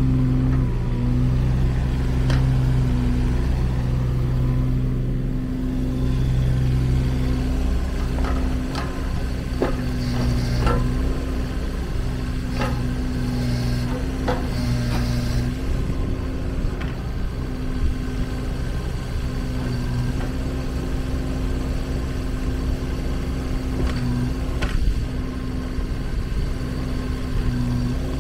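Kubota KX016-4 mini excavator's three-cylinder diesel engine running steadily, with occasional sharp clanks and knocks.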